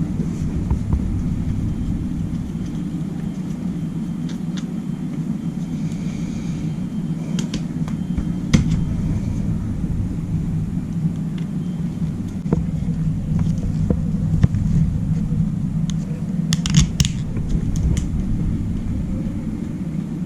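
Steady low rumble with a few scattered clicks and taps, as of a GoPro camera and its mount being handled.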